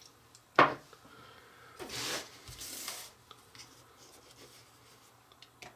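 Tabletop handling sounds: a sharp knock about half a second in, then short scraping and rubbing as dough sticks are lifted off a wooden board with a small plastic spatula and set into small metal baking pans, with faint clicks near the end.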